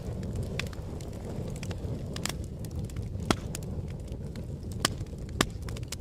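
Fire crackling: a steady low rush of burning with sharp pops and snaps scattered through it, the loudest about three seconds in and again near the end.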